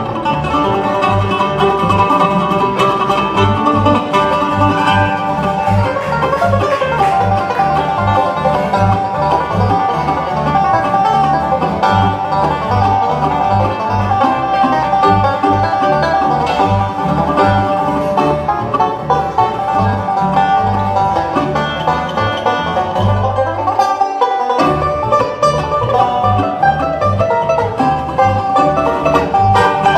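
Live bluegrass band playing an instrumental banjo tune, with banjo, mandolin, acoustic guitar and upright bass. The bass keeps a steady beat and drops out briefly about three-quarters of the way through.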